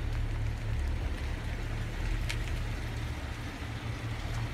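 Low, steady rumble of a car slowly towing a trailer past at walking pace, with a short sharp click about two seconds in.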